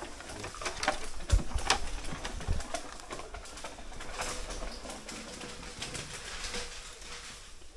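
Knocks and clatter of a freshly cut bamboo pole being handled and slid over dry fallen bamboo, with crackling of dry bamboo leaf litter underfoot. Most of the knocks come in the first three seconds, then it settles to scattered rustling and clicks.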